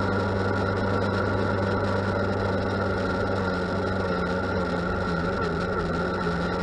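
Yamaha FZ1's inline-four engine running at steady revs, its pitch wavering slightly midway. The owner suspects the throttle position sensor or an ignition coil behind a misfire and stutter.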